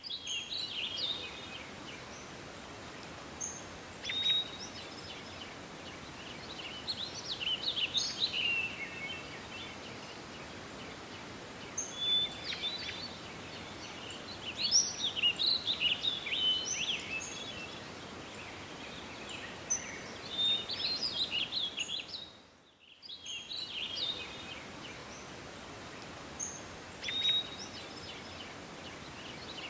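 Songbirds chirping and singing in short bursts of calls over a steady outdoor hiss, with a brief drop in the sound about three-quarters of the way through.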